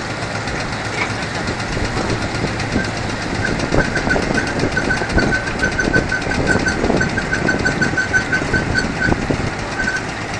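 Bucket-wheel stacker-reclaimer running in a coal yard, its bucket wheel digging into the coal pile: a steady machine drone with irregular knocks. From a few seconds in, a rhythmic high squeak repeats several times a second.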